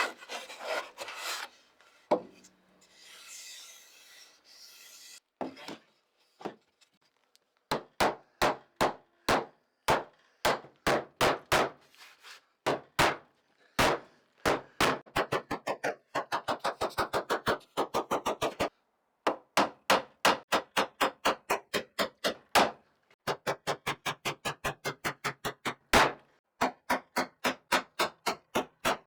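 Hand filing or sanding: rapid back-and-forth strokes of an abrasive tool worked by hand, about three to four strokes a second, in runs broken by short pauses. A few seconds of irregular scraping come before the steady strokes begin.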